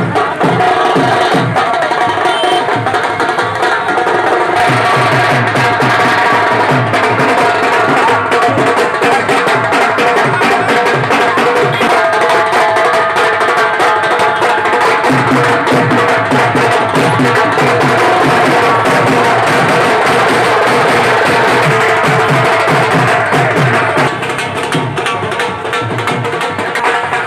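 Loud drum-led band music: drums beat a fast, steady rhythm under a sustained melody. The level drops a little near the end.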